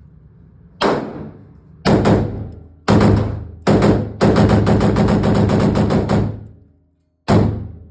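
Rifle fire from a 5.56 AR-15: four single shots about a second apart, then a rapid string of shots lasting about two seconds, then one more single shot near the end.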